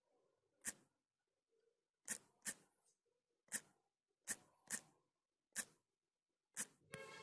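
Sharp, separate clicks of typing on a smartphone's on-screen keyboard, about eight of them at uneven spacing. Near the end comes a short ringing tone that dies away.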